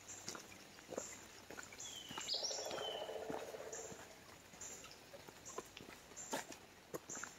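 Footsteps on a dirt trail, a scuff roughly every second, with two short descending bird whistles about two and three seconds in. A louder rough noise swells and fades over about two seconds in the middle.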